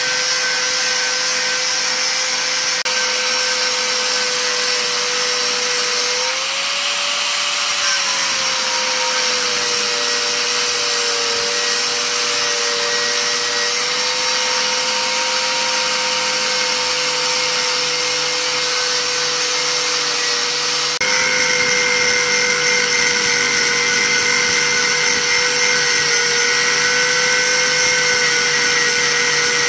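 Electric angle grinder with an abrasive cut-off disc cutting through steel rod: a steady motor whine over the hiss of the disc grinding metal. The pitch lifts briefly and then sags as the disc bites under load, and about two-thirds through the sound turns abruptly a little louder.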